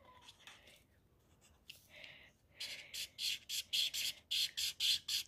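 Felt-tip marker rubbing quickly back and forth on sketchbook paper while colouring in, a run of short scratchy strokes about three a second starting about two and a half seconds in.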